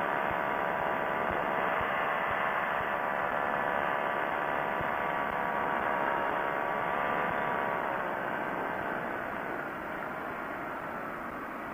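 Quicksilver ultralight's engine running steadily in flight, with wind rush over the airframe. About eight seconds in, the engine note drops slightly and gets a little quieter.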